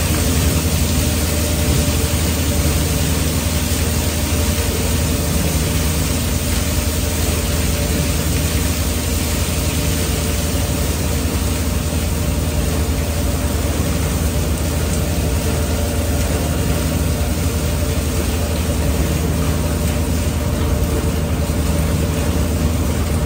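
Twin-shaft concrete batch plant mixer running during a wash-out, its motors and shafts giving a steady low hum while water jets spray onto the paddle arms with a constant hiss.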